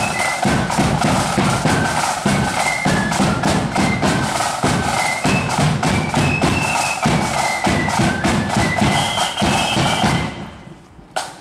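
Marching flute band playing: a high flute melody over rapid snare drumming and a heavy bass drum beat. The music stops about ten seconds in, and one last thump follows.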